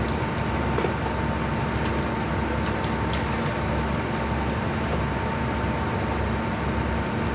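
Steady drone of a heavy engine running, with a constant hum through it and no change in level.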